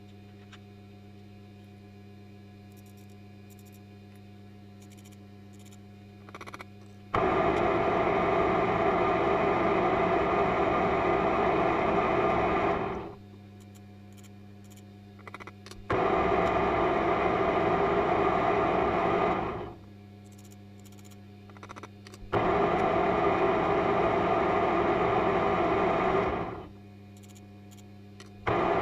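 An electric power tool motor run three times, for about six, four and four seconds, each time starting abruptly and winding down as it is switched off. Handling clicks come before each run, and a steady low hum sits underneath.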